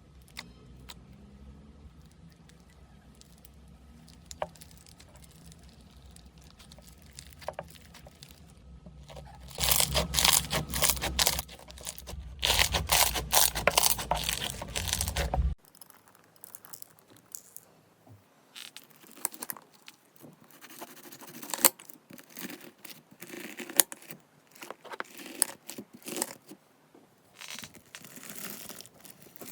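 Slime being pressed and stretched by hand, crackling and popping. The first part is quiet with scattered clicks, then dense, loud crackling runs for several seconds. After that comes a quieter stretch of scattered crackles and clicks.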